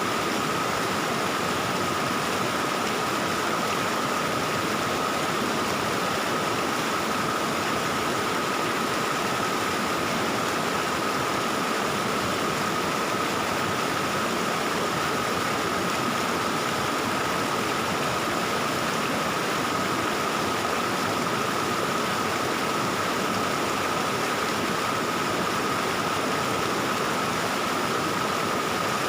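Stream water flowing in a steady, unbroken babbling rush that does not change, with a steady high-pitched tone running underneath.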